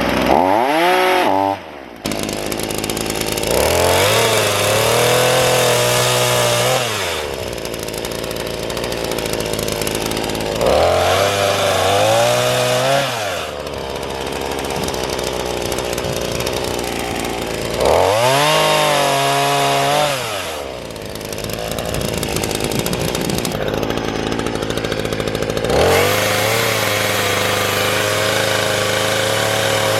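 A small engine, possibly a chainsaw, running loudly and revving up and dropping back about four times.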